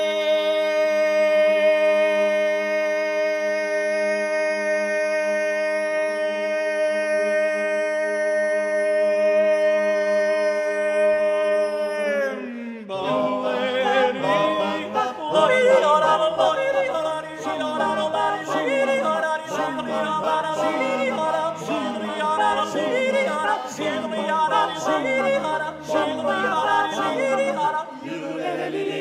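Male a cappella vocal group singing without accompaniment. They hold one long chord for about twelve seconds, slide down together, then break into a fast rhythmic passage with a bass voice repeating a falling swoop about once a second.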